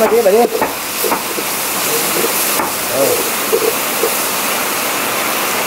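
Chopped squirrel meat sizzling steadily as it is stir-fried in oil with chilli paste in a pot over a fire, with a few light crackles.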